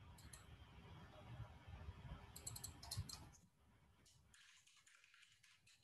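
Faint computer mouse clicks, with a quick cluster of them about two and a half seconds in, then fainter computer keyboard typing.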